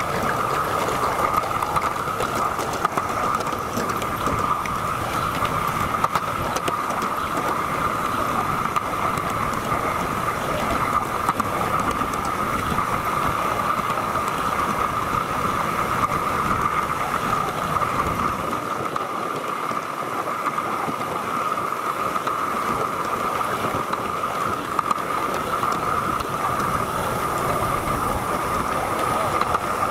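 Gauge 1 model goods train running on its track, heard from one of its wagons: a steady rolling noise of the wagon wheels on the rails, with a constant mid-pitched hum and faint clicks.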